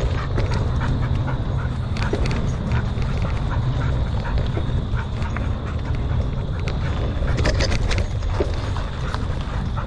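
Mountain bike rolling fast over a dirt trail: a steady rumble of tyres and wind on the action camera's microphone, with the bike rattling and clicking over bumps and roots.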